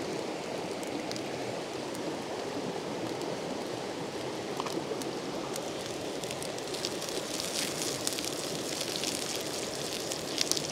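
Campfire crackling with a skillet of hot olive oil on it: a steady hiss with sharp crackles that grow more frequent about seven seconds in.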